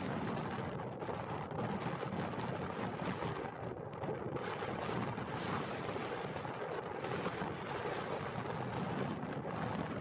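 Pilatus PC-12's single-engine turboprop on its landing roll, a steady rumbling drone heard together with gusty wind buffeting the microphone.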